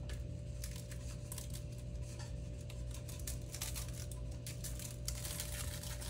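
Seasoned salt shaken from a shaker over a raw turkey: light, irregular pattering ticks as it is shaken, over a steady low hum.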